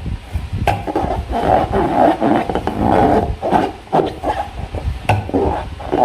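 Slime being squished and worked by hand: repeated wet, sticky squelches in uneven swells, with sharp clicks and pops between them.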